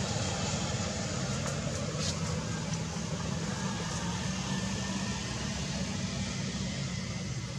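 Steady low rumble with hiss, outdoor background noise, with a few faint clicks about one and a half to two seconds in.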